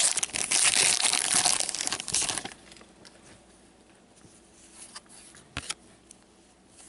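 Hockey card pack wrapper torn open and crinkled for about the first two and a half seconds, then quiet with a few faint clicks as the cards are handled.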